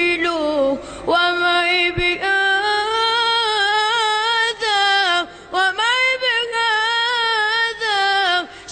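Solo unaccompanied voice singing an Islamic ibtihal in long, ornamented melismatic phrases, with brief breath breaks between phrases.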